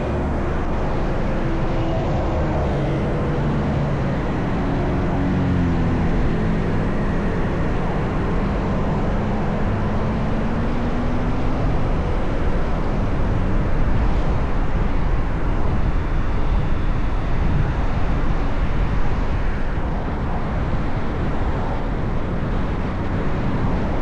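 A car on the move: steady engine and road rumble, with the engine note rising slowly for several seconds in the first half as it speeds up.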